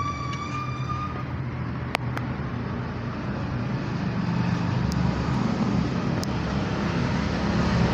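Steady traffic noise from passing road vehicles, with a few sharp metallic clicks. A high whistling tone fades out in the first second.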